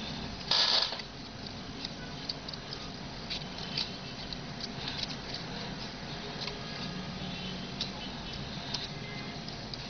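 Dry palm-leaf strips rustling and crackling as they are folded and pulled through by hand, with scattered small clicks and a louder burst of rustling about half a second in.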